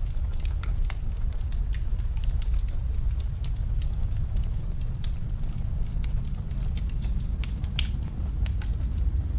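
Wood fire crackling in a fireplace, with irregular sharp pops scattered throughout, over a steady low rumble of storm wind.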